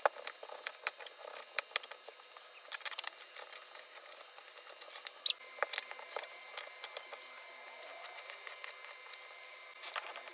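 Knife cutting onion and green bell pepper on a white cutting board: irregular sharp taps and clicks, with one brief high squeak about five seconds in.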